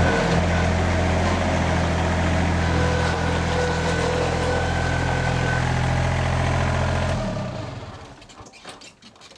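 Engine of a compact tractor-mounted forklift running steadily, with a high whine that comes and goes. The engine stops about seven seconds in and the sound dies away.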